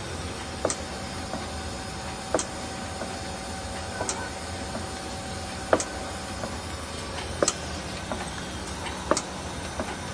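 Automatic patty-forming machine running: a steady mechanical hum with a sharp clack about every 1.7 seconds, one for each forming stroke as a patty is pressed and pushed out onto the mesh conveyor.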